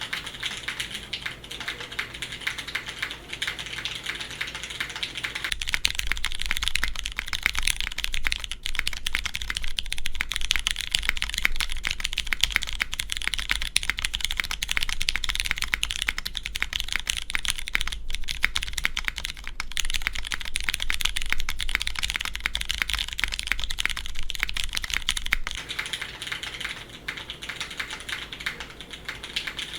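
Continuous typing on a custom mechanical keyboard with lubed Cherry MX Clear tactile switches, GMK keycaps and a carbon fibre plate: a dense run of key clacks. The typing gets a little louder about six seconds in and eases back near the end.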